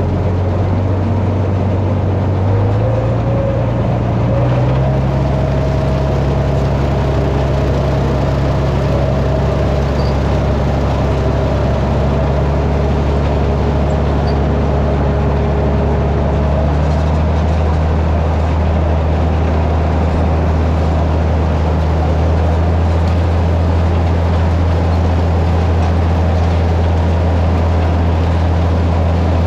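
Tractor engine running under load, driving a Bearcat flail forage chopper through its PTO while chopping green hay. The engine speed steps up twice in the first five seconds, then holds steady.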